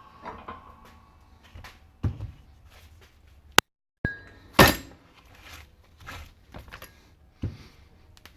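Scattered metal clinks and knocks of tools and bearing parts being handled during a front wheel bearing job, with a few sharper strikes, the loudest a little past halfway. The sound drops out to silence twice for a moment.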